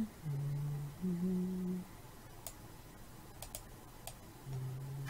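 A man's voice making three drawn-out, flat-pitched hesitation sounds ("euh"), with a few faint computer mouse clicks in the quiet gap between them.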